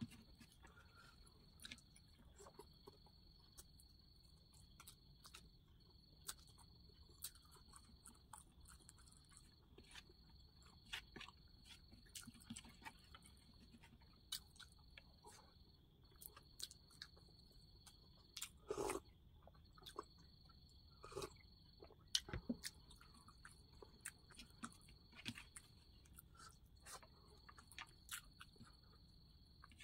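Quiet close-up eating sounds: chewing and lip smacks while eating rice with dal and home-grown potato and beans by hand, heard as scattered small clicks, with a few louder ones past the middle. A faint steady high trill runs underneath.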